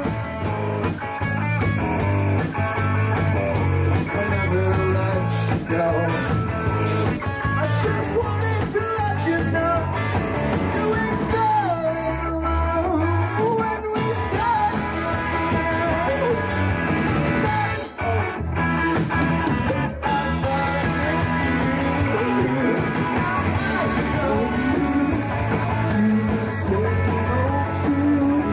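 A rock band playing live: sung lead vocals over electric guitar, bass and drums, with a steady beat. About twelve seconds in there is a rising slide in the low end.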